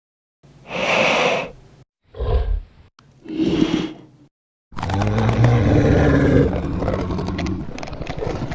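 Monster roars: three short roars in the first few seconds, then a longer roar that runs on without a break from about halfway through.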